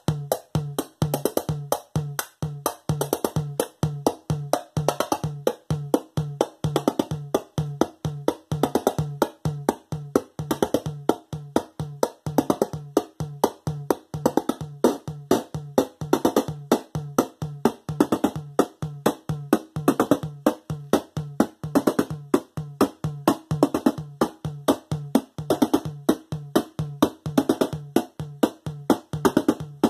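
Eurorack modular synthesizer playing a sequenced electronic percussion pattern: a fast, even run of short clicky, wood-block-like hits over a repeating low pitched pulse, from the twinCussion+ dual percussion voice being tweaked by hand.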